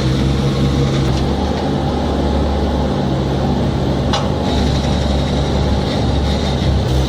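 Heavy machine's engine running steadily with a deep, even drone, and a single brief sharp click about four seconds in.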